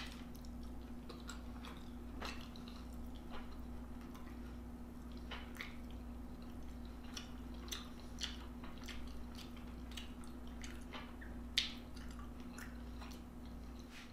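Close-miked chewing: scattered wet smacks and small clicks of a person eating pepper steak and rice, with one sharper click about two-thirds of the way through, over a steady low hum.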